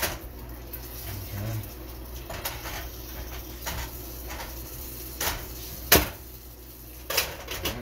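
A spatula stirring and scraping food around a frying pan, with a few short clacks against the pan. The sharpest knock comes about six seconds in.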